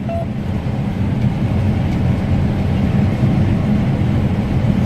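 John Deere S680 combine running while harvesting wheat, a steady low drone of engine and threshing machinery heard from inside the cab.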